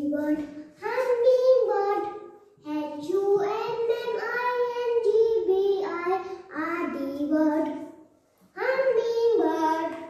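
A young child's voice singing in a drawn-out sing-song, in several phrases broken by short pauses.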